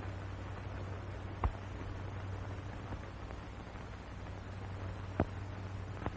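Steady low hum and hiss of a 1940 film soundtrack, broken by two sharp clicks, one about a second and a half in and one about five seconds in.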